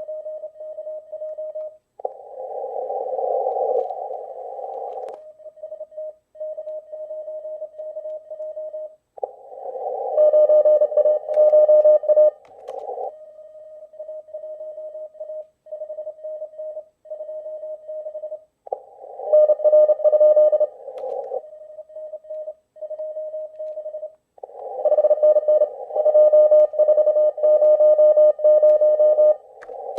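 Morse code (CW) signals from an amateur radio receiver on the 15-meter band, played loud through a laptop's speakers: one steady tone keyed on and off in dots and dashes. Several stretches of louder, rougher keying stand out among fainter runs.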